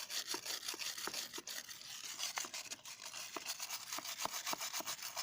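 Wire brush scrubbing a rock in quick back-and-forth strokes, several a second, scraping off caked-on grime.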